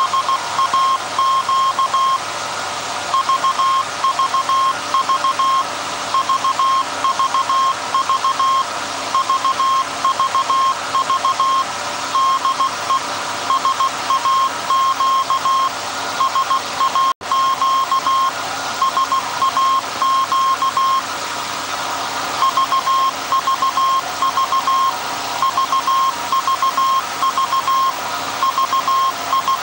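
Morse code from the SAQ Alexanderson alternator transmitter: a steady beep keyed on and off in dots and dashes with longer pauses between groups, over a steady machine hum and hiss. The sound drops out for an instant about 17 seconds in.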